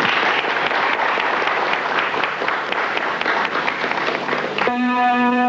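Audience applauding. Near the end the applause stops and an electronic keyboard begins the song's introduction with sustained chords.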